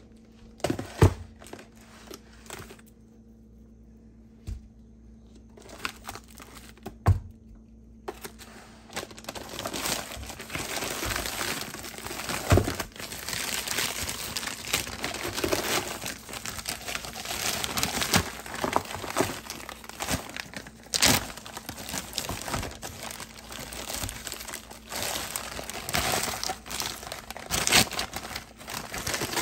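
Zip-top plastic freezer bags holding frozen meat crinkling and rustling as hands open and handle them. A few knocks in the first seconds, then dense crinkling from about eight seconds in.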